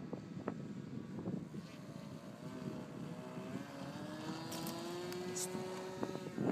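Radio-controlled model plane's motor running up, its pitch rising steadily through the takeoff run. Wind buffets the microphone throughout.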